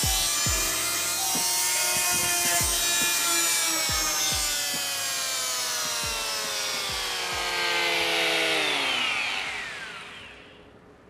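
Pigeon G561 oscillating multi-tool running with a steady high whine and scattered knocks. About nine seconds in it is switched off, and its pitch falls away as the motor winds down.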